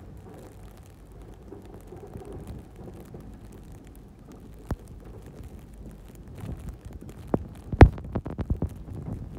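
Snow-plow truck running while its blade pushes snow, heard from inside the cab as a steady low rumble. A single sharp click comes about halfway through, then a quick run of sharp knocks and thumps near the end, the loudest about eight seconds in.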